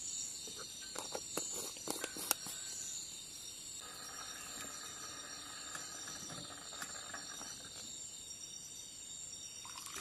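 Crickets chirring steadily in the background. A few sharp clicks and knocks come in the first couple of seconds, and a soft hiss rises for a few seconds midway.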